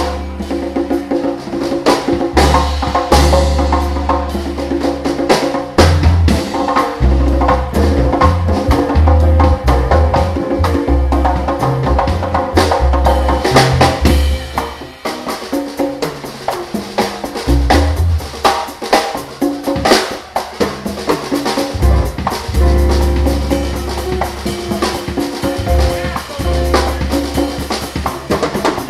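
Jazz band playing live, with a drum kit and an electric bass line to the fore and other pitched instruments above. The bass drops out briefly twice, around the middle.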